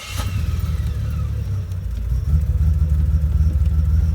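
Car engine running with a steady low rumble that grows louder about two seconds in.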